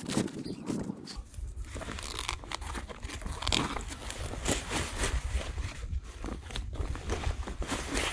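Sand crunching and a fabric sandbag rustling and crinkling: a scoop of sand goes into the bag, then the bag is gripped and handled to shift the sand inside. A steady low rumble sits underneath from about a second in.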